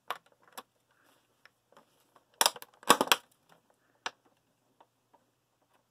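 Clear plastic blister tray crackling and clicking as it is handled, with a few sharp clicks and a louder cluster of crinkles about two and a half to three seconds in.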